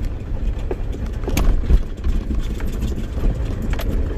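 Jeep driving along a dry dirt trail: a steady low rumble of engine and tyres, with scattered knocks and rattles from the bumps.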